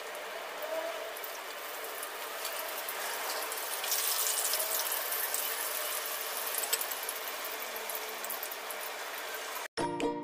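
Slices of beancurd frying in hot oil in a pan: a steady sizzle with many fine crackles, a little louder midway. Near the end it cuts off and a bright music jingle starts.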